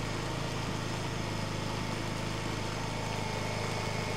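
Hyundai HY2000si inverter generator's small four-stroke engine running steadily at the low, even speed of economy mode.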